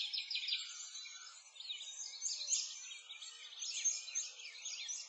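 A chorus of small songbirds chirping and twittering, many quick high chirps overlapping without a break.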